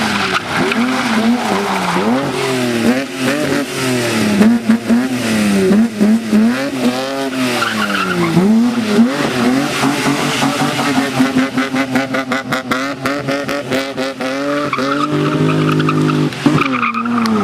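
BMW E21 3 Series rally car driven flat out on a gravel stage, its engine revving up and down repeatedly through gear changes and lifts for the corners. Partway through, a run of rapid sharp clicks sounds over the engine.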